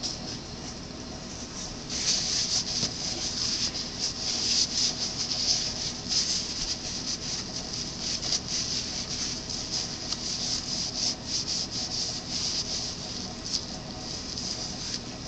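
Scratchy rubbing noise in quick, irregular strokes, starting about two seconds in and easing off near the end.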